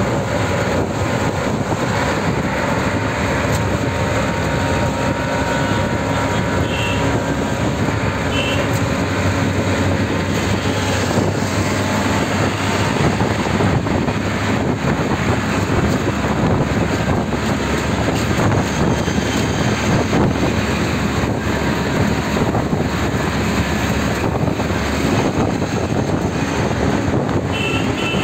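Riding in an auto-rickshaw at speed: its small engine runs steadily under a loud, constant rush of wind and road noise. A few short, faint high beeps come through.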